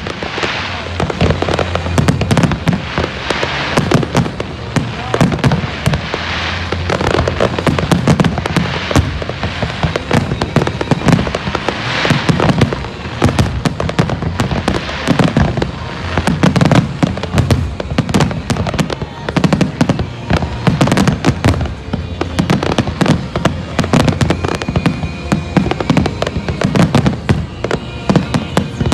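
Aerial firework shells bursting in quick, unbroken succession: deep thumps mixed with crackling, loud throughout.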